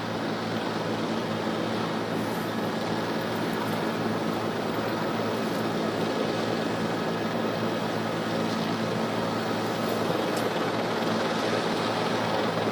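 Steady rushing aircraft noise with a low hum underneath, growing slightly louder.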